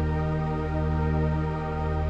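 Slow, calm background music of long held notes over a deep bass.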